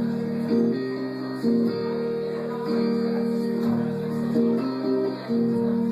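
Acoustic guitar playing a song's instrumental intro: strummed chords held and changed about once a second.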